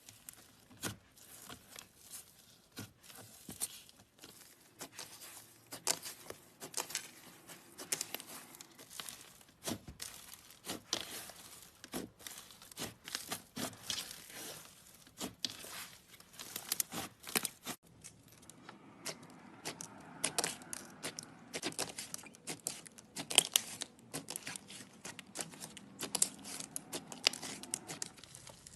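Slime being squeezed and stretched by hand, making a dense run of sticky crackles and little pops, with a short pause about two-thirds of the way through.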